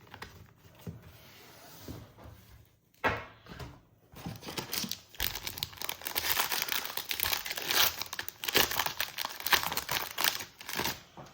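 A trading card pack wrapper being torn open and crinkled, with a sharp rip about three seconds in and loud, continuous crinkling from about five seconds in.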